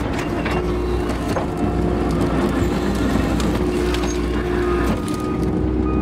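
Case TV450 skid steer running with its Fecon forestry mulching head, heard from inside the cab: a steady diesel-and-hydraulic drone with a held tone, broken by scattered light clicks and knocks.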